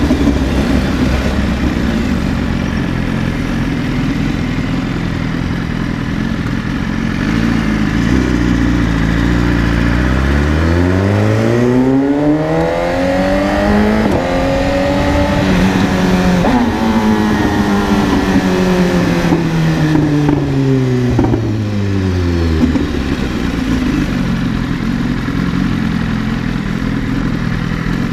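BMW S1000RR inline-four engine running low and steady, then about a third of the way in revving up smoothly to a high pitch and winding back down over roughly twelve seconds.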